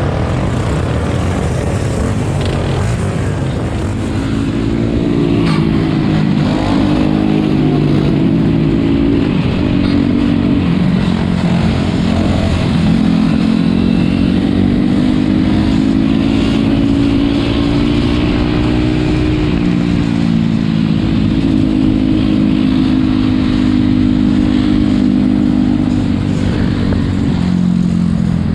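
Four-wheeler (ATV) engines running close by with no let-up, their pitch rising and falling as the throttle is worked.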